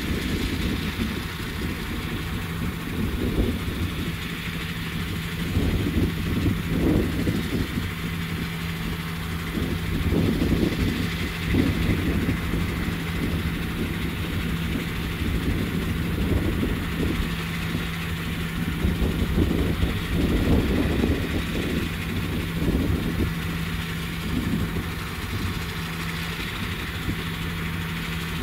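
Heavy diesel engine idling steadily, with uneven low rumbling over it.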